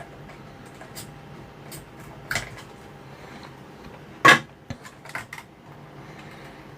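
Small hard parts and tools being handled on a workbench: a scatter of light clicks and knocks, the two loudest about two and four seconds in, over a faint steady hum.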